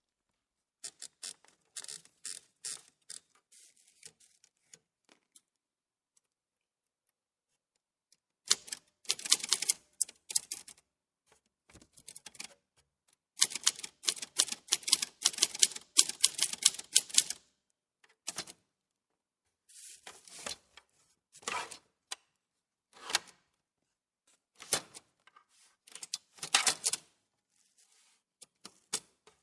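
Typewriter keys being struck in rapid runs of clacks, broken by short pauses, with a quiet stretch of a few seconds before louder, denser typing resumes.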